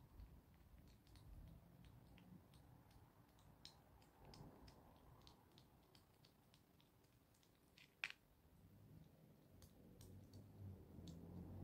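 Hedgehog eating from a dish: faint, irregular clicks and smacks of chewing, with one sharper click about eight seconds in.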